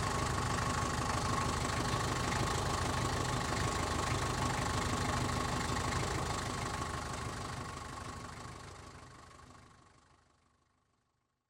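Taxi engine idling steadily, heard from outside the car, fading out over the last four seconds.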